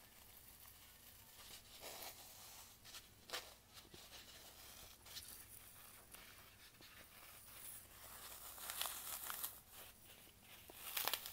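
Fingers crushing and poking into a disc of green floral foam: faint crunching and crackling in irregular short bursts, loudest near the end.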